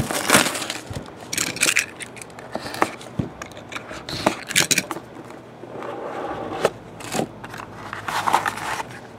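Cellophane shrink-wrap crinkling and tearing as it is pulled off a sealed trading-card box, then rustling and scraping as the cardboard box is handled and opened, in irregular bursts with sharp clicks.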